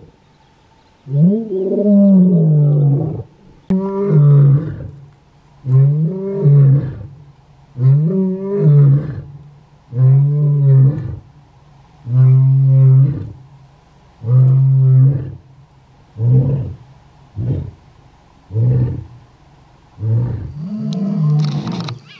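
Lion roaring: a bout of about a dozen deep calls, the first several long and drawn-out about every two seconds, then shortening into brief grunts towards the end, the lion's territorial roar.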